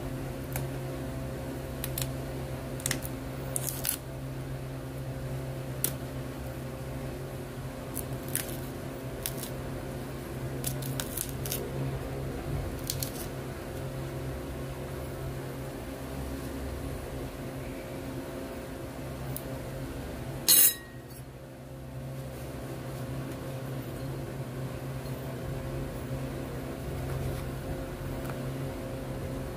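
Small cardboard box being handled and opened, with scattered light clicks and rustles, and a metal spoon scraping and clinking against a ceramic bowl as powder is scooped. One sharp, louder clink a little past two-thirds through. A steady low hum runs underneath.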